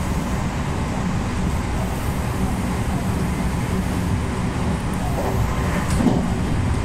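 Electric train running on the rails, heard from inside the car behind the driver's cab: a steady rumble and hum of motors and wheels, with one sharp knock about six seconds in.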